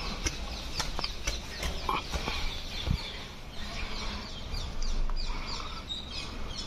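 Animals chirping and squeaking: many short, high calls, several a second, with scattered clicks among them.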